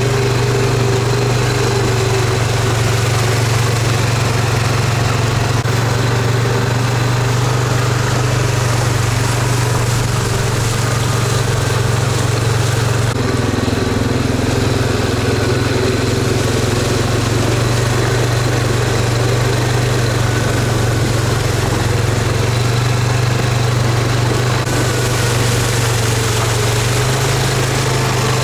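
Steady engine and road drone of a car while driving, an unchanging low hum.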